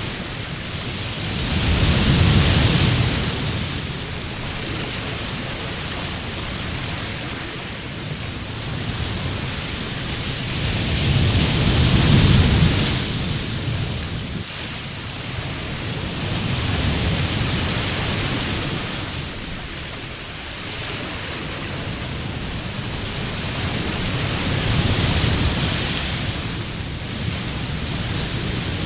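Sea surf on a beach: a steady rush of water that swells louder as waves break, about four times.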